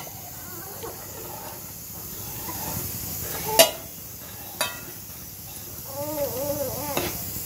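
Metal ladle stirring thick coconut milk into a jaggery mixture in an aluminium pot, clinking sharply against the pot twice, over a steady hiss. A brief voice near the end.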